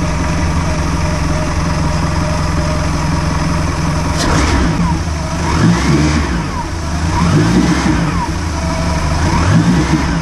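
Bayliner Trophy 1802's engine idling, then revved up and back down three times from about four seconds in, a test of its newly installed throttle cable.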